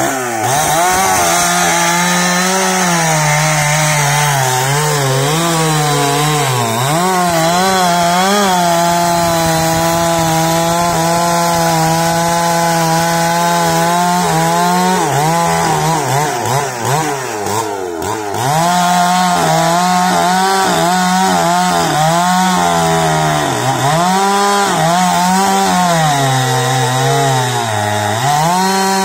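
Husqvarna 365 two-stroke chainsaw running at high revs while cutting into an old sapodilla stump. The engine note sags under load and picks up again several times, with a longer drop in revs a little past the middle.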